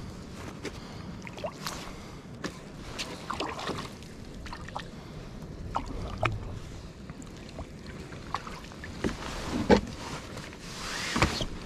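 Scattered knocks and clicks of fishing gear being handled aboard a plastic Hobie Revolution 13 pedal kayak, with one sharp, louder knock near the end. It is followed by a short rustle of a plastic bag.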